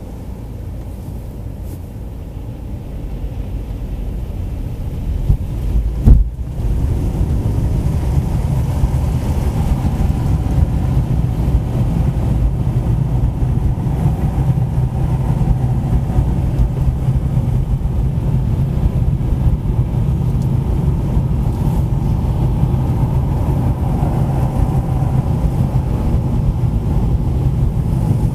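A car driving on a city road: a steady low rumble of engine and tyres that grows louder over the first several seconds, with one sharp thump about six seconds in.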